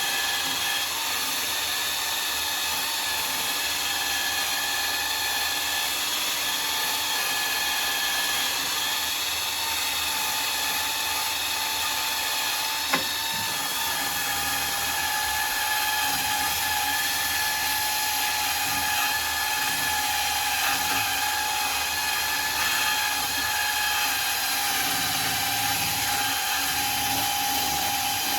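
Power tool spinning a wire wheel against a steel car body panel, stripping surface rust. It runs as a steady whine with a scratchy hiss, with one sharp click about halfway through, and cuts off at the very end.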